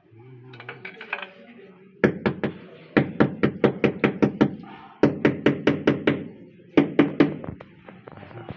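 A mallet tapping a ceramic wall tile to bed it into its mortar. The taps start about two seconds in and come in four quick runs of about five a second.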